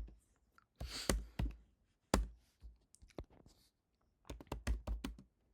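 Typing on a computer keyboard: short runs of keystrokes with pauses between them, one keystroke a little after two seconds standing out louder than the rest.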